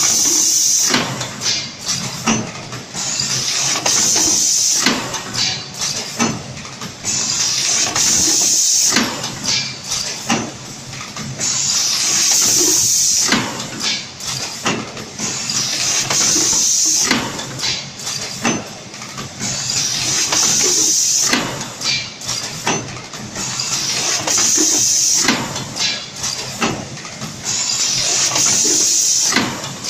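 Automatic bottle blow molding machine cycling: a loud blast of hissing compressed air about every four seconds as each bottle is blown and the air vented, with short knocks and clicks of the valves and moving mold in between.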